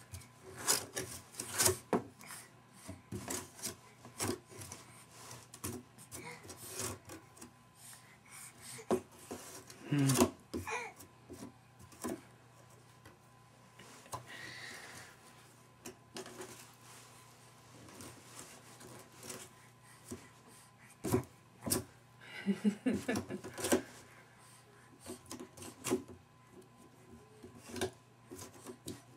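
A baby's hands scratching, tapping and slapping at a cardboard box: an irregular run of scrapes and taps, busiest near the end.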